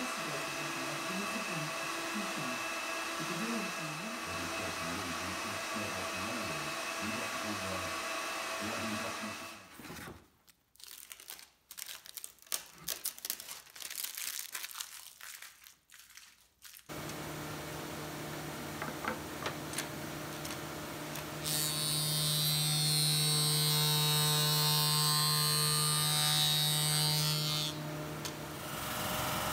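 A few short squirts from a hand spray bottle. Then a jointer starts with a steady hum, and for about six seconds the noise is much louder as a walnut and resin slab is pushed across the cutterhead, before it drops back to the idle hum.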